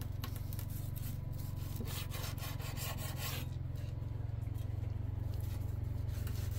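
Knife sawing through crisp bacon-wrapped chicken down onto a wooden cutting board, with a run of scraping and crackling a couple of seconds in, over a steady low hum.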